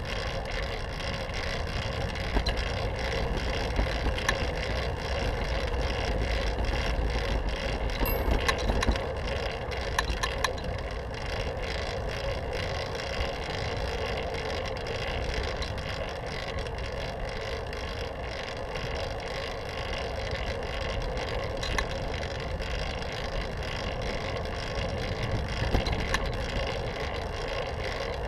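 Fixed-gear bicycle riding on pavement: a steady rumble of tyre and wind noise, with scattered light rattles and ticks from the bike.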